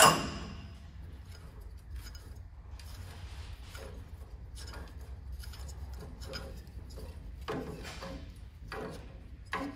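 A rusty metal light being twisted off its threaded mount by hand, with faint scraping and clicking of corroded metal turning on metal. A sharp clack comes right at the start, and a low steady hum runs underneath.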